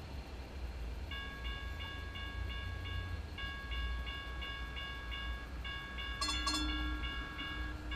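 An electronic warning tone beeps about three times a second, in repeating runs, over the low hum of a MAX light rail train standing at a platform. A brief high hiss comes near the end.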